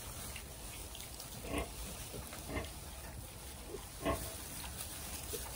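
Berkshire piglets giving three short grunts spread over a few seconds, over a low steady background.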